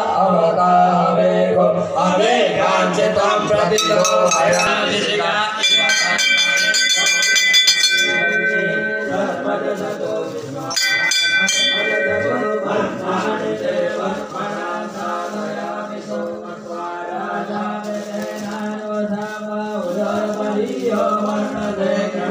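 Voices chanting Hindu mantras in unison over a steady low drone. A temple bell is rung rapidly for about two seconds a third of the way in, and again briefly about halfway through.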